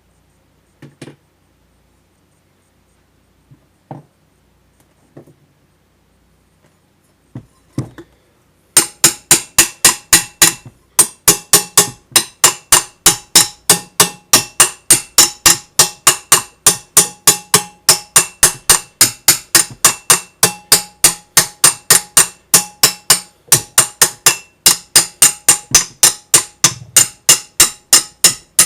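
A few light knocks, then from about nine seconds in a hammer striking metal over and over, about four blows a second, each with a ringing metallic note. The hammering pauses briefly twice.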